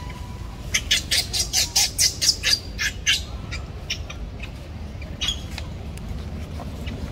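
Baby monkey giving a rapid string of short, shrill squeals, about four a second, beginning about a second in and dying away after about three seconds, with a few fainter calls later.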